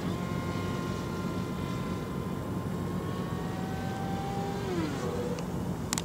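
Stock brushless electric motor and propeller of an RC foam plane whining in flight. Its pitch slides slowly down, then drops more steeply about three-quarters of the way through. A short sharp click comes near the end.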